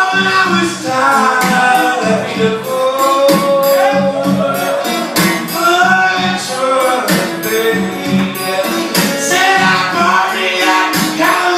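Live country-blues song: a man singing over a guitar strummed in a steady rhythm.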